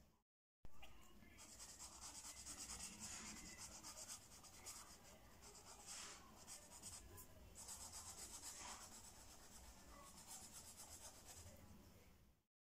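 Faint scratching of a black felt-tip pen on paper as the centre of a drawing is shaded in, in two stretches of a few seconds each.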